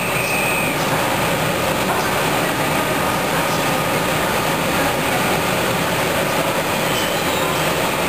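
Passenger train hauled by a Siemens EU44 electric locomotive rolling slowly into the platform, a steady rumble, with a brief high squeal in the first second.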